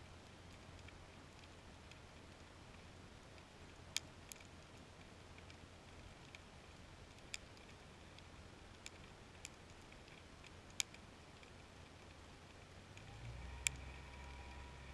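Faint underwater scene: scattered sharp single clicks, about seven of them at uneven intervals, over a low steady hum that grows a little louder near the end.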